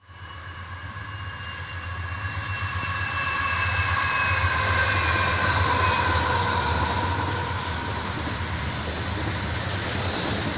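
Union Pacific double-stack container freight train rolling past, with a steady low rumble of the cars on the rails that grows louder over the first few seconds. A high ringing tone sounds over it at first, slowly falling in pitch and fading out about halfway through.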